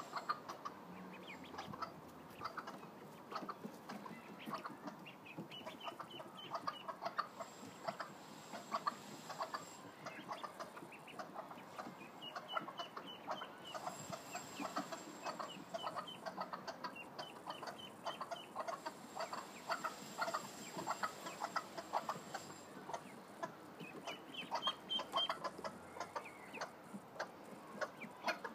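Bantam hens clucking continually in short notes, with a few brief runs of high, rapid peeping from ducklings.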